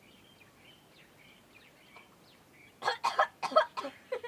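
A chicken giving a loud, quick run of clucking calls about three seconds in, after faint high chirps.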